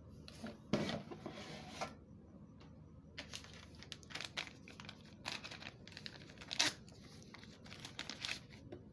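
Plastic packaging film rustling and crinkling in irregular bursts as it is handled. The loudest bursts come about a second in and near the middle.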